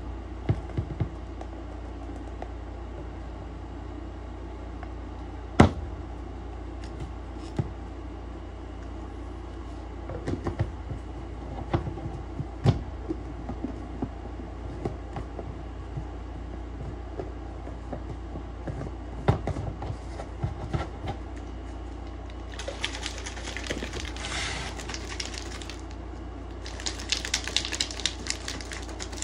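Scattered clicks and knocks of a scoop and plastic containers as pre-workout powder is measured into a shaker bottle and the lid closed. Near the end, the shaker bottle is shaken in two bouts of rapid rattling with a short pause between.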